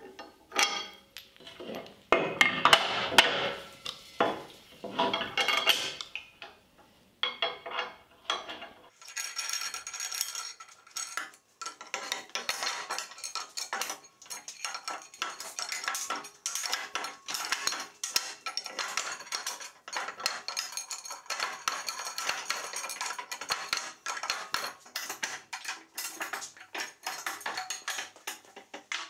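Steel parts of a scissor car lift clinking and clanking as its arms and pins are fitted by hand. Separate knocks at first, then from about nine seconds in a dense run of fast metallic rattling and clicking.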